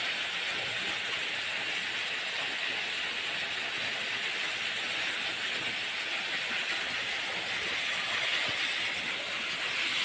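Steady rush of falling water from a waterfall, an even hiss with no breaks.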